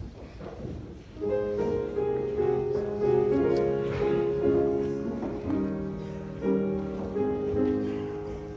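Keyboard instrument playing the introduction to the closing hymn in slow held chords, starting about a second in.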